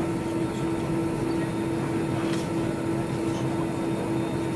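Steady jet engine and airflow noise inside the cabin of an Airbus A320-214, with a constant hum from its CFM56 turbofans over the rushing air.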